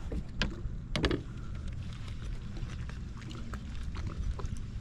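Water lapping and ticking against a plastic fishing kayak's hull, with wind rumbling on the microphone; one louder knock or splash about a second in.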